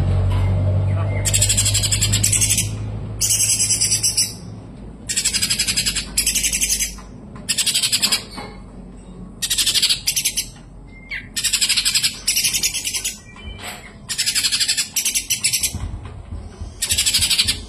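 A kapas tembak bulbul singing: a run of about a dozen loud, very high, rapid trilled phrases, each under a second long, with short gaps between them. A low hum sits under the first few seconds and comes back near the end.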